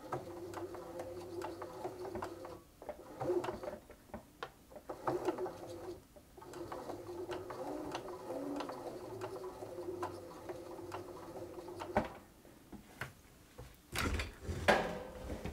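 Bernina B380 computerised sewing machine running in short stitching bursts, its motor humming and stopping several times; the machine runs again without smoke after a blown chip on its electronic board was replaced, though its zigzag still does not work. A few loud handling knocks near the end.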